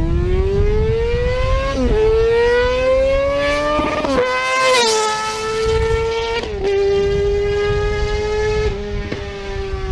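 High-revving racing engine climbing in pitch and shifting up through the gears, with sharp drops in pitch about 2 and 4 seconds in, then holding a high, nearly steady wail with brief dips.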